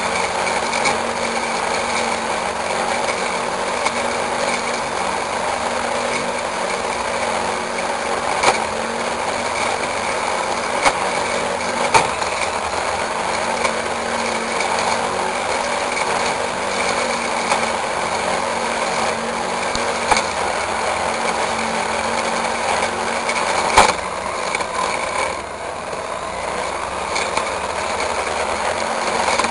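Petrol brush cutter running steadily under load as its blade cuts weeds and straw, with a few sharp clicks and a brief dip in engine level about three-quarters of the way through.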